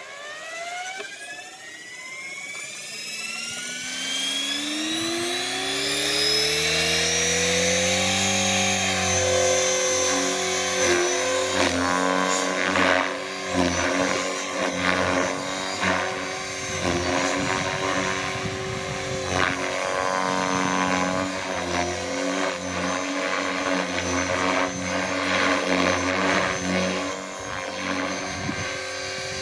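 Align T-Rex 500L electric RC helicopter spooling up: the brushless motor whine and rotor rise steadily in pitch and loudness over the first eight seconds or so, governed to a headspeed of about 2700–2800 rpm. It then holds that pitch in flight, the rotor noise swelling and dipping as the helicopter manoeuvres.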